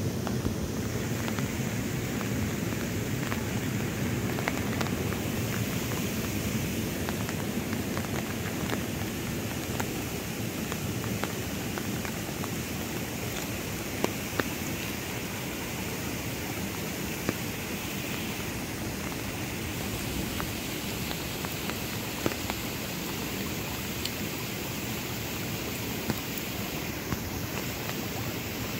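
Steady rushing noise of water in a flood, with a few scattered sharp ticks.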